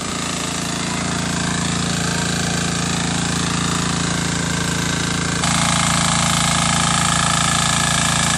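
Small single-cylinder engine of a portable water pump running steadily, pumping water through its hose; it gets louder about five seconds in.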